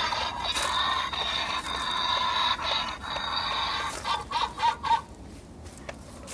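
Animated skeleton greyhound prop playing a dog sound effect through its small built-in speaker: a long held howl, then about four seconds in a quick run of about five short yips.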